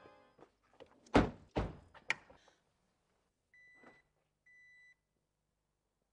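Two heavy thumps of car doors being shut about a second in, with a few lighter knocks around them, followed by two short high electronic beeps.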